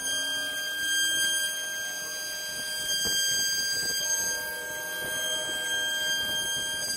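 CNC wood router's spindle running at high speed while the bit cuts a wooden door panel: a steady high-pitched whine with several overtones over a rough cutting noise.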